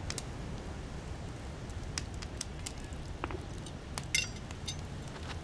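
A small fire crackling with scattered sharp ticks, and a few light metallic clinks from a tool worked in the fire, over a steady low hiss.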